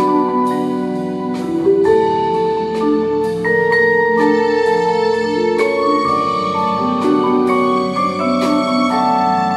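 A percussion ensemble's front line plays a slow chordal passage on vibraphones and marimbas: struck mallet notes that ring on and overlap.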